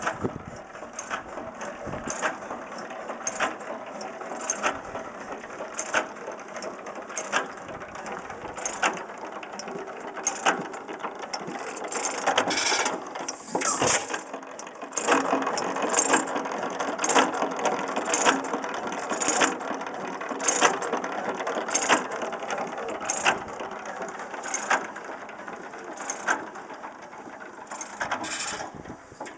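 A 12 hp Domestic Type A stationary gas engine running. A sharp beat comes about every second and a third over a steady mechanical clatter, louder through the middle.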